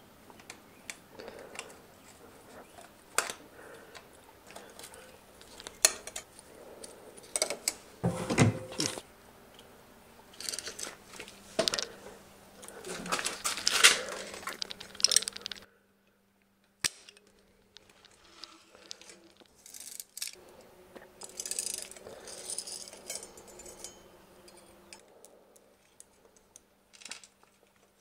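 Small metal clicks and clinks of a bicycle front derailleur and hex key being handled and fitted to the seat tube, with short scraping and rattling handling noises in between.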